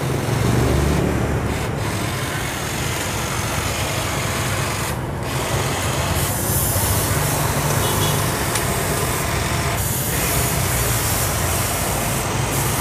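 DEKTON cordless hedge trimmer running, its reciprocating blades buzzing steadily as they cut through a leafy shrub's branches.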